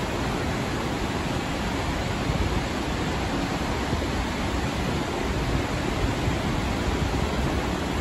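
Snoqualmie Falls and the river below it: a steady, even rush of falling and churning water.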